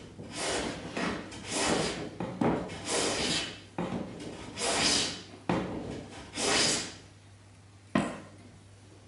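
Hand plane cutting shavings from a wooden board: a quick run of about eight rough, hissing push strokes, which stop about seven seconds in. A single sharp wooden knock follows about a second later.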